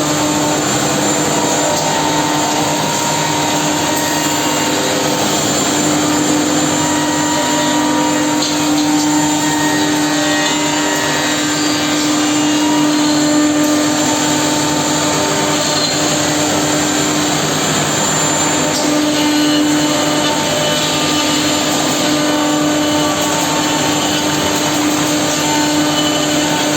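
Woodmaster two-head CNC mortising machine running, a steady whine of its spindle motors with machining noise that stays at an even level.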